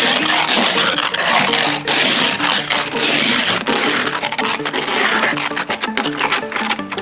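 Background music with held notes, over loud, dense mechanical rattling and clatter with many sharp strokes.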